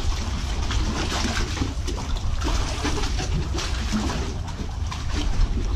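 Water lapping and sloshing against timber pier pylons, over a steady low rumble of wind on the microphone, with a few small clicks scattered through.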